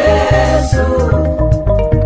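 Music with a steady bass beat and sustained melody notes.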